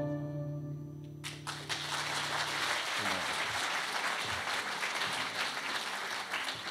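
The final held note of a flute over a sustained keyboard chord dies away about a second in. An audience's applause then breaks out and carries on.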